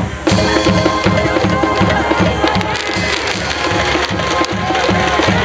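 A stands cheering band playing a cheering song: held brass-like tones over a steady, regular drumbeat.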